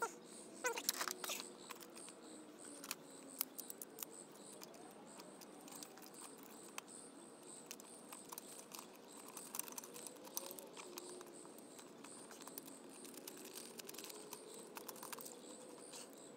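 Light metallic clicks and scrapes of a chrome headlight trim ring being fitted around the lamp and its clamp screw turned with a screwdriver. The sharpest clicks come in the first second or so, then lighter scattered clicks follow.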